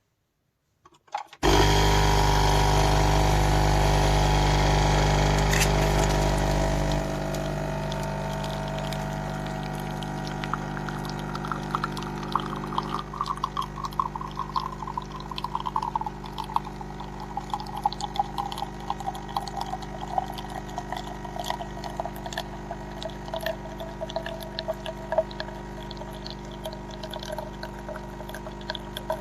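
Dolce Gusto capsule coffee machine brewing: its pump starts with a loud steady buzz about a second in and drops to a quieter hum after several seconds. Coffee streams and sputters into the cup, with many small crackles and a tone that slides lower.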